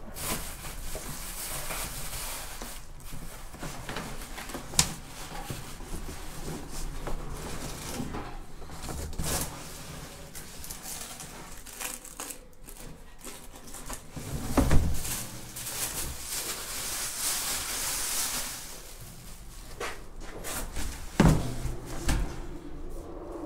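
Plastic wrapping crinkling and cardboard box flaps rustling and scraping as a new gas tank is unwrapped and lifted out of its box, with a few sharp knocks, the loudest about fifteen seconds in.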